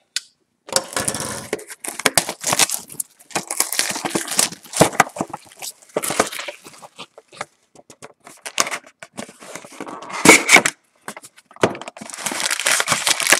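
Plastic shrink-wrap being torn and crinkled off a cardboard box of trading cards, in irregular bursts, with sharp knocks as the box is handled.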